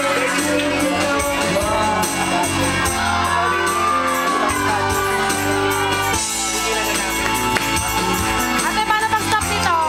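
Karaoke music: a backing track playing over a sound system, with a voice singing the melody.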